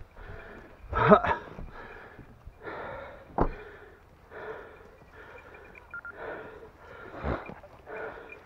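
Heavy, rasping panting close to the microphone, breaths going in and out about twice a second, with a louder gasp about a second in and a few sharp knocks.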